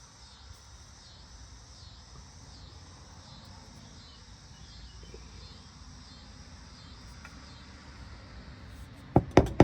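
Steady high-pitched insect chirping, pulsing about twice a second, over a faint low rumble. Near the end come a few sharp, loud knocks.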